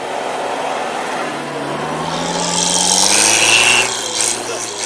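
UAZ off-roader's engine revving, its pitch rising steadily, while its tyres churn through deep snow with a loud hissing scrape. The scrape peaks about three seconds in and drops off sharply a little later.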